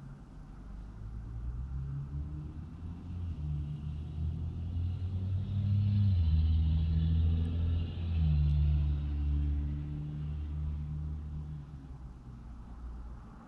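Low engine rumble of a motor vehicle passing close by, heard from inside a parked car: it builds over a few seconds, stays loudest for several seconds with a couple of shifts in pitch, then fades away.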